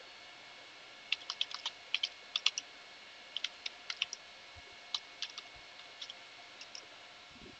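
Computer keyboard typing: sharp keystrokes in quick, irregular bursts as a short command is entered, starting about a second in.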